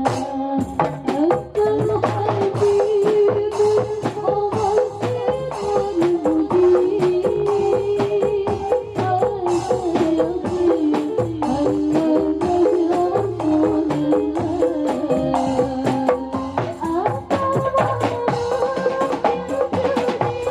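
Marawis ensemble playing: hand drums, deep bass drum strokes and jingling tambourine keep a dense, steady rhythm under a sustained melody line.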